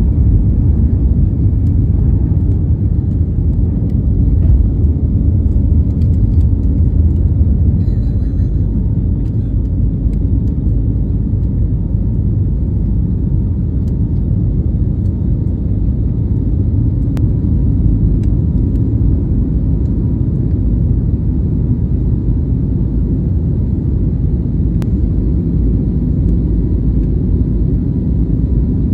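Steady low rumble inside an airliner's cabin during the climb after takeoff: jet engines and rushing air heard through the fuselage.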